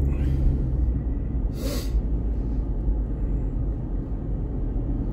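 Steady low road and engine rumble of a car being driven, heard from inside the cabin, with one short hiss about a second and a half in.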